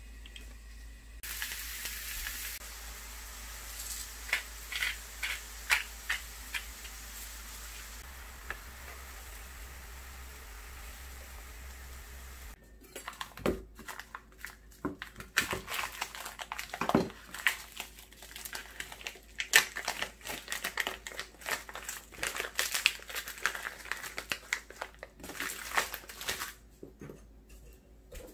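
Oil in a frying pan on a gas hob sizzling with a steady hiss that starts just over a second in. About halfway through it gives way to irregular clicks, knocks and scrapes of a spoon working avocado in a ceramic bowl.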